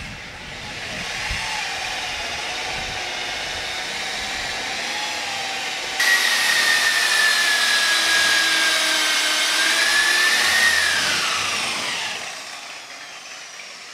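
Corded electric polisher running with a steady motor whine while buffing hazed paint on a steel cabinet. About six seconds in it suddenly gets louder and higher, and near the end the whine slides down in pitch as the motor spins down.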